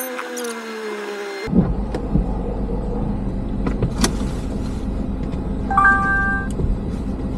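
A car running with a steady low rumble, as heard from inside it, with a single electronic beep about six seconds in. Before that, held musical tones cut off abruptly about a second and a half in.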